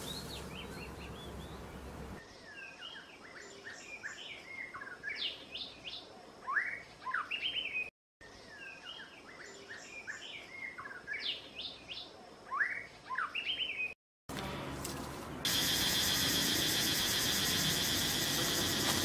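Songbirds chirping and whistling in quick, varied rising and falling notes, the same few seconds of song heard twice with a short break between. Near the end a louder, steady, high-pitched buzzing hiss takes over.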